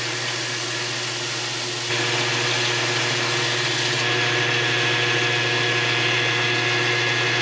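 Bench belt sander running with a steady motor hum while a flat rudder bearing plate is held against the belt, sanding a worn groove flat. The grinding gets louder about two seconds in, and the sound shifts about four seconds in as the belt changes from 80 to 120 grit.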